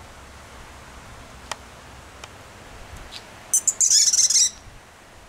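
A small bird chirping: one high-pitched, rapid twittering burst of about a second, a little past halfway. A few faint short ticks come before it.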